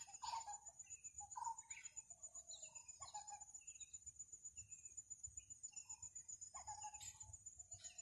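Faint wildlife sound: a steady high-pitched insect drone, with many short bird calls and chirps scattered through it. The loudest two calls come within the first two seconds.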